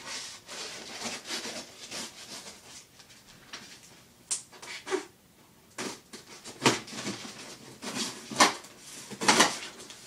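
Dull knife scraping and cutting at packing tape on a long cardboard box, with cardboard scratching and rustling. Several louder scraping strokes come in the second half.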